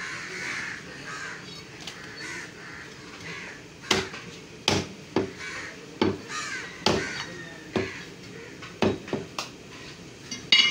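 A heavy butcher's cleaver chopping through mutton ribs onto a wooden chopping block: about nine sharp chops from about four seconds in, one every half second to second, the last one the loudest.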